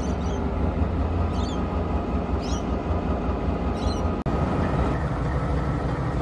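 NSW 421 class diesel-electric locomotive, an EMD two-stroke V16, rumbling as it hauls a passenger train slowly away, with short high chirps about once a second. A little over four seconds in the sound cuts to a 48 class diesel locomotive's engine running steadily.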